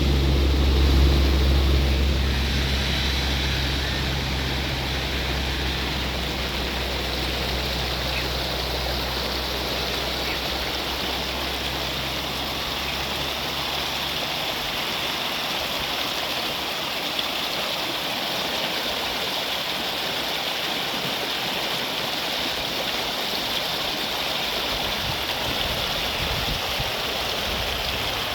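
Steady rushing of flowing water. A low engine hum fades away over the first half.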